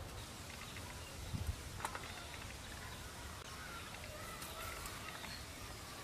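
Rural outdoor background with faint bird calls, and two soft knocks close together about a second and a half in.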